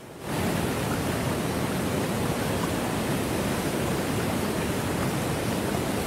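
Waterfall at close range: a loud, steady rushing noise that comes in suddenly a moment in.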